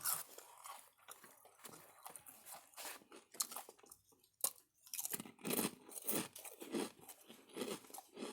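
Close-up mouth sounds of someone chewing crunchy potato chips, with a steady run of crunches about two a second in the second half.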